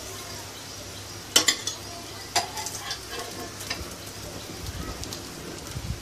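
Potato patties shallow-frying in oil in a frying pan, a steady sizzle, with a few sharp clicks of the spatula against the pan as they are lifted out.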